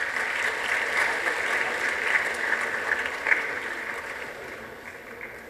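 Audience applauding, fading away gradually over a few seconds.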